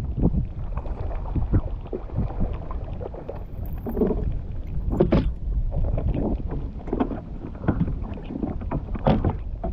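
Strong storm wind buffeting the microphone with a heavy rumble, while choppy water slaps and knocks irregularly against a fishing kayak's hull; the loudest knocks come about halfway through and near the end.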